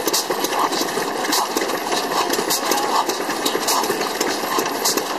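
Old kerosene stationary engine running, a firing beat about every three quarters of a second over a light mechanical clatter from its valve gear and spinning flywheels.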